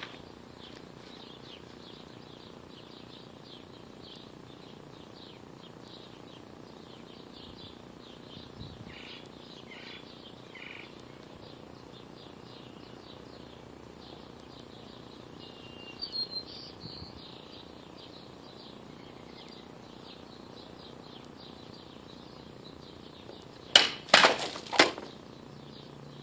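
Cold Steel Emperor katana cutting plastic water bottles: a quick cluster of sharp swishing cracks about a second long, near the end, as the double cut goes through. Before it, faint outdoor background with small bird chirps.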